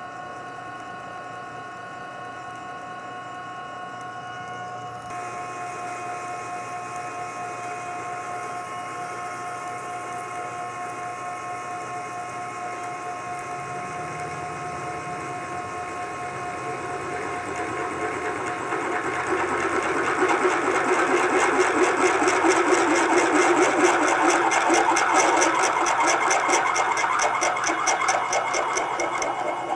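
Precision Matthews PM-949TV 3 hp variable-speed milling machine drilling metal with a large twist drill at about 300 RPM under power feed, run dry without coolant: a steady machine whine with the grinding sound of the drill cutting chips. The cutting sound grows louder past the halfway point, with a fast rhythmic ticking near the end.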